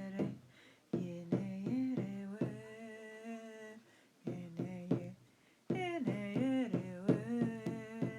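A woman's voice singing wordless, long-held notes over a hand drum beaten steadily, about two to three strokes a second, with two brief pauses in the middle.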